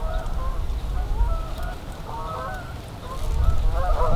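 A flock of geese honking, many calls overlapping, thinning slightly in the middle and densest near the end, over a steady low rumble.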